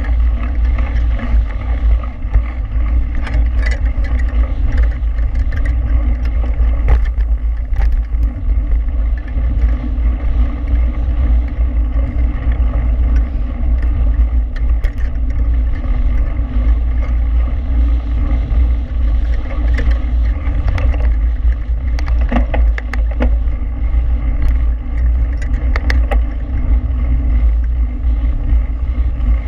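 Heavy wind buffeting on the microphone of a mountain bike moving fast down a dirt road, with the tyres rolling over gravel and scattered short clicks and rattles from the bike.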